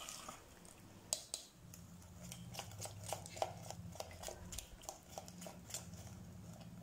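Steel ladle stirring thin flour batter in a stainless steel bowl: faint, irregular clicks and scrapes of metal on metal.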